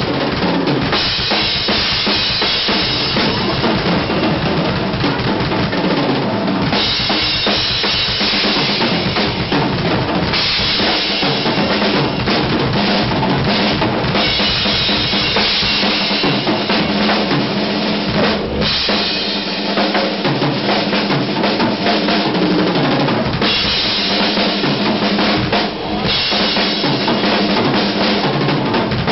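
Rock drum kit with two bass drums played in a live drum solo: fast, continuous hits on the bass drums, snare and toms, with stretches of cymbal wash that come and go.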